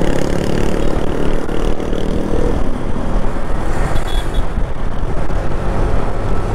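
Motorcycle under way: the engine drones with heavy wind and road rumble on the microphone. The engine's note stands out most clearly in the first two and a half seconds, after which wind and road noise dominate.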